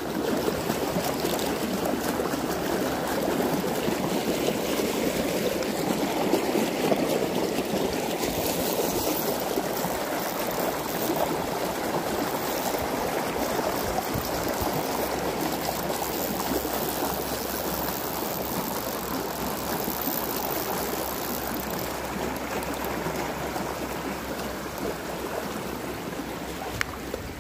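Shallow creek water rushing and gurgling over rocks in a steady, even flow that gets a little quieter near the end.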